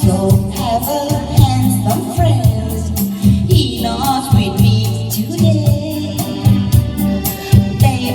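A song: a woman singing a melody over a band with bass and regular shaker-like percussion.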